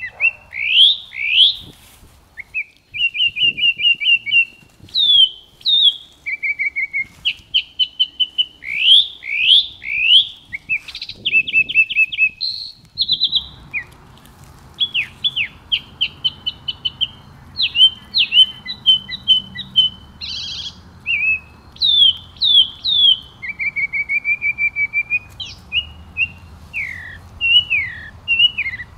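Several songbirds singing and chirping in quick succession: rapid trills, repeated chirps and sharp down-slurred whistles. A steady low rushing noise comes in underneath about halfway through.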